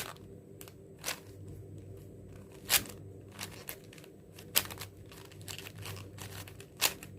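Layers of a 4x4 Rubik's cube being turned by hand: irregular sharp plastic clicks, about five loud ones with softer scrapes between, as the move sequence is carried out.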